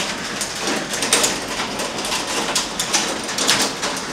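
Hailstones falling and clicking on hard surfaces: a dense, irregular patter of sharp clicks over a steady hiss.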